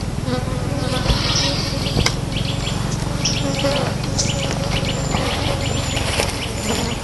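Insects buzzing steadily, with short high chirps and brief bird calls over it.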